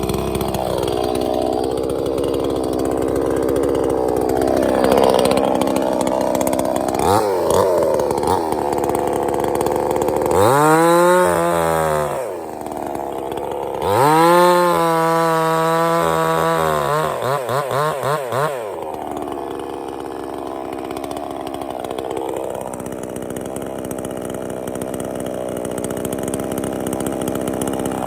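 Sungel 58 cc two-stroke chainsaw running under changing load, its engine note dipping and recovering. About ten seconds in it revs up to full speed twice. A run of quick throttle blips follows, then it settles back to a lower, wavering note.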